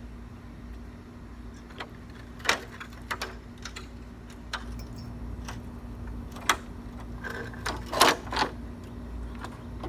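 A handful of sharp clicks and knocks, irregularly spaced, with the loudest cluster near the end, over a faint steady hum and low rumble.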